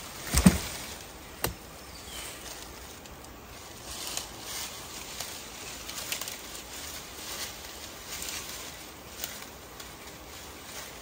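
Heavy wooden thumps as chunks of teak stump knock together: two close together about half a second in, a sharper knock a second later, then dry leaves and twigs rustling and crackling underfoot.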